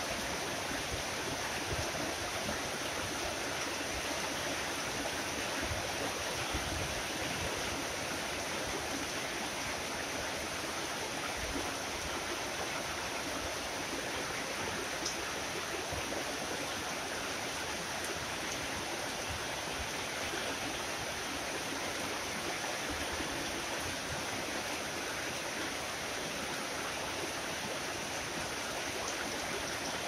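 Tropical rain falling steadily: an even hiss with many scattered single drop impacts.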